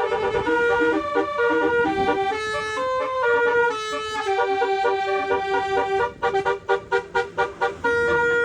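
Twelve-trumpet telolet air horn playing a tune of held horn notes that step from pitch to pitch, with a quick run of short toots about six seconds in.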